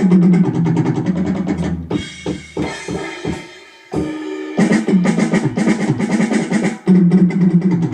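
Music with a full drum kit playing a steady rhythm of kick and snare over a low bass line. The drums thin out about two seconds in and come back strongly about four and a half seconds in.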